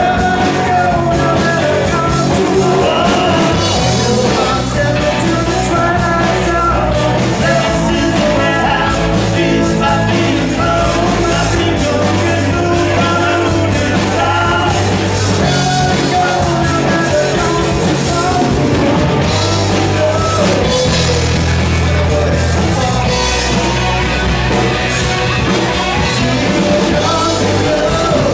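Live rock band playing: lead vocals over electric guitars, bass guitar and a drum kit with steady cymbals.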